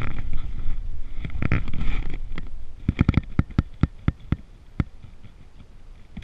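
Low rumbling handling noise while a trot line is hauled in hand over hand along the side of a jon boat, then about a dozen sharp knocks in quick succession over a couple of seconds.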